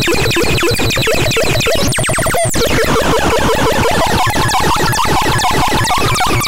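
Synthesizer playing a fast train of short blips, each falling in pitch, many a second. About two and a half seconds in, a quick downward sweep breaks the pattern, and the blips then carry on at a higher pitch.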